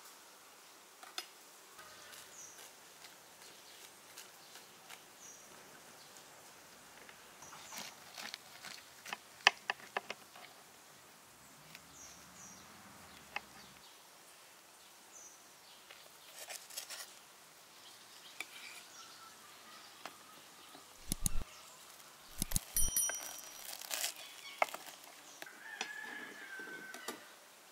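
Birds chirping now and then in the background, with scattered sharp clicks and knocks, a louder cluster of knocks and low thumps coming about three quarters of the way in.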